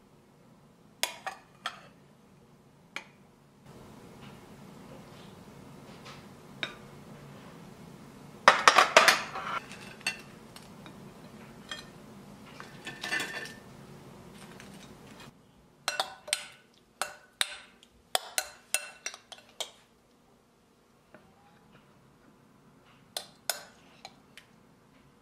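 Metal tongs and ceramic plates clinking and clattering as food is served: scattered sharp clicks, a denser clatter about eight to ten seconds in, and a quick run of clinks near the end.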